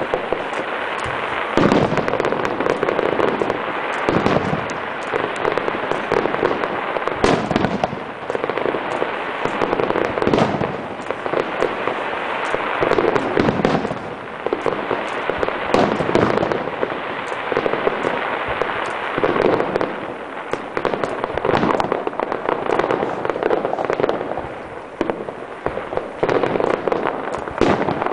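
Aerial fireworks display: a dense, unbroken stream of overlapping bangs and pops, with loudness swelling and easing every few seconds.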